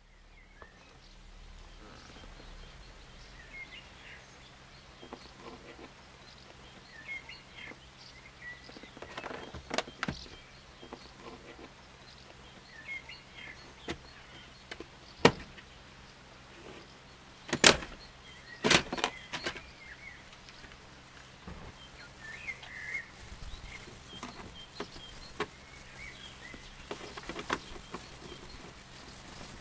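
Plastic dash display housing of a Citroen Berlingo being pried up off the dashboard by hand, with scattered handling rustles and a few sharp clicks and knocks of the plastic around the middle. Toward the end a screwdriver works at the display's Torx screws. Faint bird chirps and a steady low hum sit underneath.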